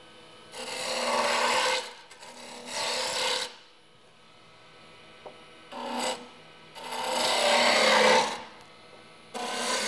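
Gouge cutting a spinning wooden chair-leg spindle on a wood lathe: about five passes, each a rushing, scraping hiss of shavings peeling off, lasting from half a second to a second and a half, with short lulls where the tool comes off the wood.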